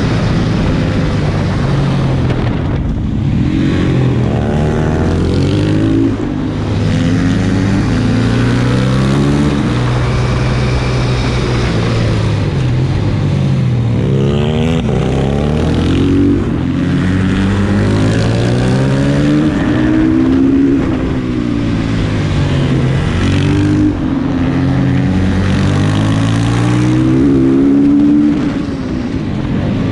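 Supermoto motorcycle engine heard from on board at speed. It revs up and down over and over as the rider accelerates, shifts and slows for corners, with wind noise throughout.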